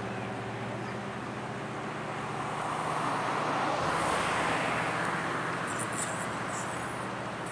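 Steady low engine hum from a river cruise ship passing close by. A broad rush of noise swells in the middle and fades again.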